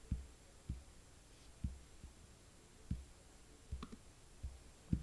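Clicking of a computer pointer button: about six short, soft, low clicks at irregular intervals.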